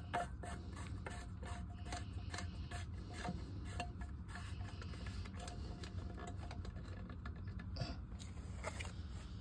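Light, irregular clicking and rattling of plastic parts as a hand handles the float and PVC fitting of a sump pump, over a steady low hum.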